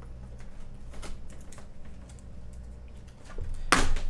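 Fingernails picking and scratching at the seal sticker on a cardboard box, a run of small light clicks, then a brief louder tearing sound near the end as the seal is pulled loose.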